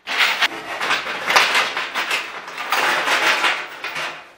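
Steel chains clattering and banging around inside an empty steel car fuel tank as it is shaken hard, a continuous jangling metallic racket that starts abruptly and eases slightly near the end. The chains are scouring loose rust and scale from the tank's inside walls.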